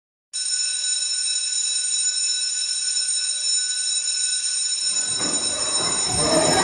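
Electric school bell ringing steadily, starting suddenly just after the start. From about five seconds in, children's chatter and bustle rise beneath it.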